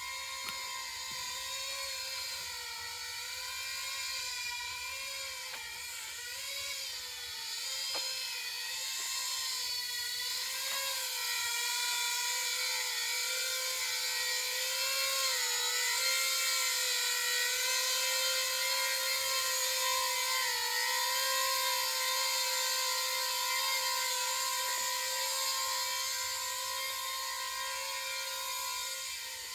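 Electric coaxial copter's two counter-rotating rotors running in flight: a steady hum with overtones whose pitch wavers slightly as the throttle changes.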